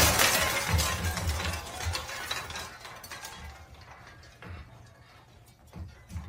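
A sudden crash, then a fast rattling clatter that dies away over about four seconds.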